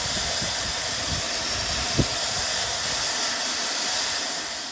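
Steam hissing loudly and steadily from a standing GWR Modified Hall 4-6-0 steam locomotive, Foremark Hall, with a single short knock about two seconds in.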